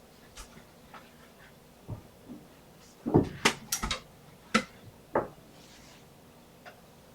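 A handful of separate knocks and clicks, as of objects being handled or set down, several close together about three seconds in and two more a little after.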